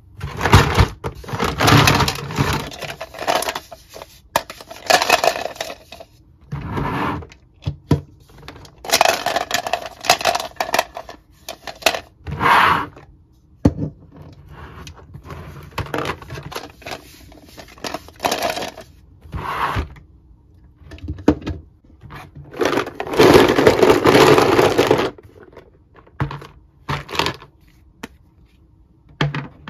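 Hard plastic toy parts clattering and scraping in irregular bursts as hands rummage through a plastic storage bin, with a longer spell of continuous rattling a little before the end.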